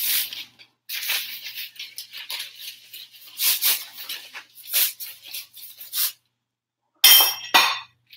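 Paper bakery bag rustling and crinkling in irregular crackles as a long loaf of French bread is slid out of it, followed by two short, louder bursts near the end.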